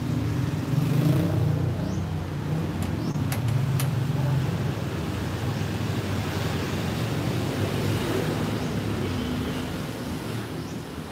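A motor vehicle's engine running close by, a low hum that swells in the first second and eases off near the end.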